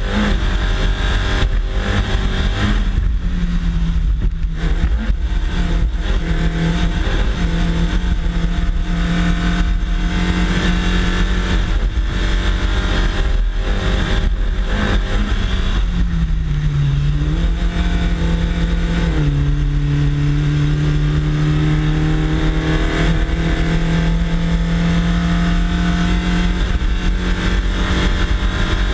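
Race car engine pulling hard up a hill climb, with heavy wind and road rumble from a bumper-mounted camera close to the tarmac. The engine note holds fairly level, dips briefly past the middle, drops a few seconds later, then climbs slowly again.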